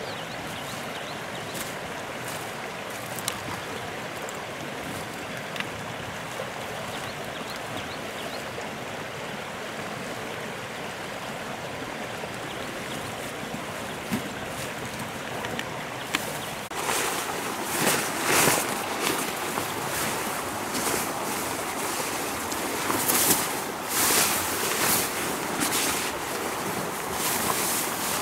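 A small stream flowing steadily, with a few light knocks. About two-thirds of the way in, loud irregular crinkling and rustling begins as a plastic camouflage tarp is pulled out and unfolded.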